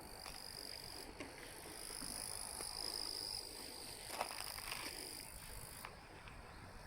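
Insects buzzing steadily at a high pitch, with a short knock about four seconds in.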